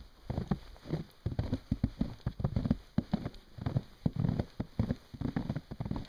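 Boots crunching through fresh, fairly deep snow at a walking pace, a quick irregular run of crunches with each step.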